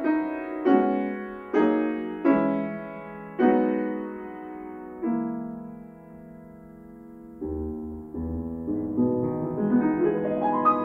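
Grand piano played solo: several struck chords each left to ring and fade, a softer stretch in the middle, then deep bass notes and quicker notes climbing higher near the end.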